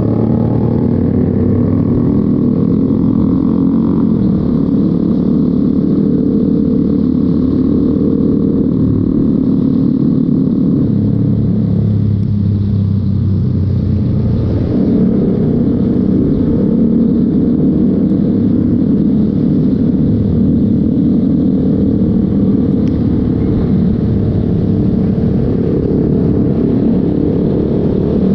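Motorcycle being ridden on the road: steady engine and road noise, its low tone shifting for a few seconds around the middle.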